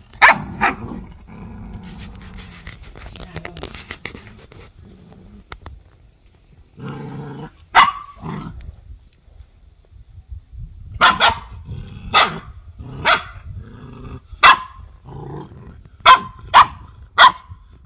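Bắc Hà puppies play-fighting, yapping and growling. Two sharp yaps at the start, then mostly growls, a single yap about eight seconds in, a run of yaps from about eleven seconds, and three quick yaps near the end.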